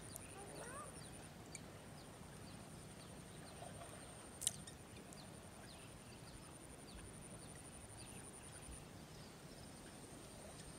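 Faint rural background: a steady high-pitched whine with a low hum beneath, a few faint bird chirps, and one sharp click about four and a half seconds in.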